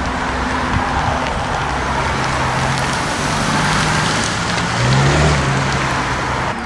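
Car engine running, with a brief rise in pitch about five seconds in, over a steady hiss of noise.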